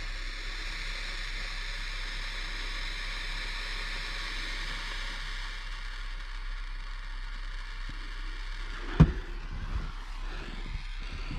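Butane torch lighter burning with a steady hiss while heating a solder-seal wire connector, ending about nine seconds in with a sharp click, followed by a few small knocks.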